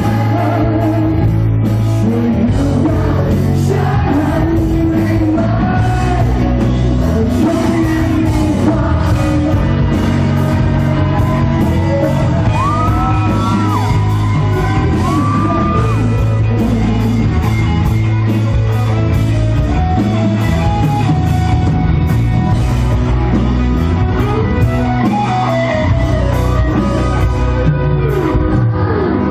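A rock band playing live, with a singer over electric guitar and drums keeping a steady beat. It is heard from the audience and carries the echo of a large hall.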